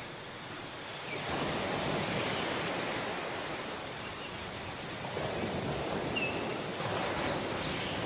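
Waves breaking and washing up a beach. Two swells of surf, the first about a second in and the second about five seconds in, with a few faint high chirps of birds or insects.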